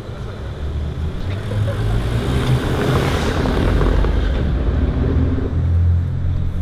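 A car drives past over cobblestones. The tyre and engine noise swells to a peak about three seconds in and then fades.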